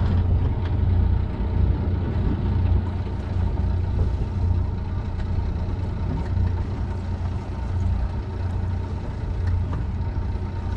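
Sailboat's engine running steadily at very low RPM, kept slow because it stalls at higher revs after a propeller problem, with a low, even rumble.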